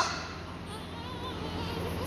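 A newborn baby's loud cry breaks off at the start, followed by faint, short whimpers about a second in, over a steady low hum.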